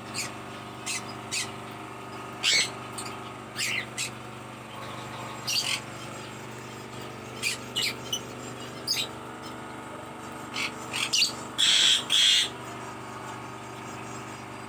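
Birds chirping in short, separate calls scattered through, with two louder calls back to back near the end, over a steady low hum.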